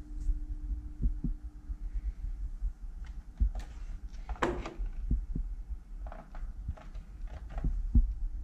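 Desk telephone handset lifted off its cradle about four and a half seconds in and set back down near the end, with clicks and knocks of the handset and hook switch; the loudest knock comes as it is put down. A steady low hum runs underneath.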